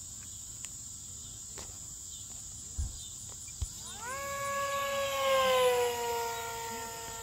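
E-flite V900 electric ducted-fan RC jet making a fast, low pass: a high fan whine comes in about four seconds in, swells to its loudest and then slides down in pitch as it goes by. Crickets chirp steadily underneath.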